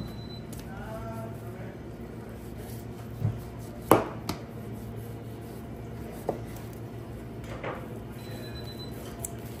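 Boning knife cutting and trimming fat from a beef inside round on a cutting board. The meat and knife knock on the board a few times, sharpest about 4 seconds in, over a steady low hum.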